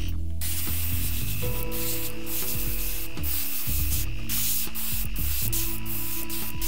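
Airbrush spraying paint: a steady hiss of air starting about half a second in, broken by several brief gaps where the trigger is let off.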